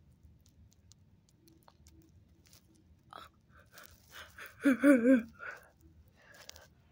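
A short warbling vocal sound, under a second long, its pitch wobbling up and down several times, with light rustling and scratching around it.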